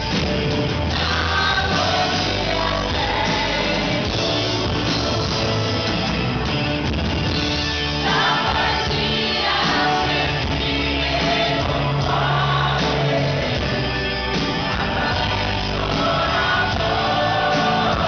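Live pop band playing a song: a male lead singer and a female backing singer over electric guitar, drums and keyboards.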